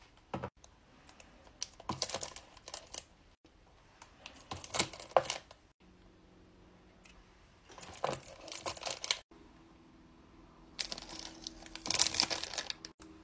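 Plastic-wrapped wax melt packs and a clear plastic clamshell being handled and set into a plastic storage tub: crinkling wrappers with light plastic clicks and taps, coming in several short bursts a few seconds apart.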